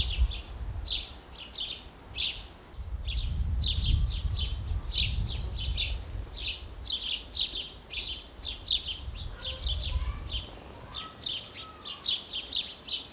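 Small birds chirping, with short, sharp chirps repeated several times a second, over a low, uneven rumble.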